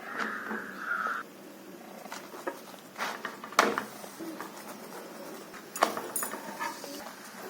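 Kitchen utensil handling: a brief scraping hiss for about the first second, then scattered clicks and knocks of utensils and cookware.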